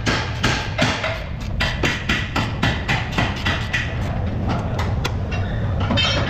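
Hand ratchet clicking in quick, uneven runs as it turns the nuts on the top of a car's front strut mount. The clicks thin out about four seconds in.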